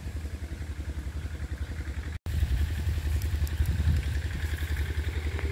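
An engine running steadily with a low, rapid throb. The sound drops out for an instant about two seconds in.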